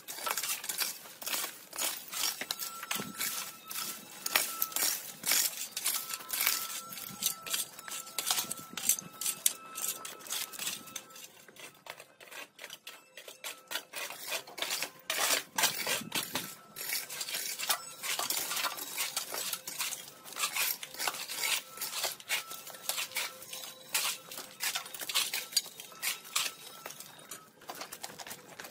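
Shovels and rakes scraping over the dirt and concrete ground in quick repeated strokes, with metal clinks and the crackle of dry branches and leaves as debris is gathered and loaded into a wheelbarrow. The strokes ease off for a few seconds in the middle.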